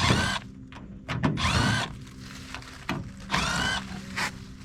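Cordless drill/driver backing sheet-metal screws out of a package unit's access panel: three short runs and a brief fourth, each a whine that rises in pitch as the motor spins up.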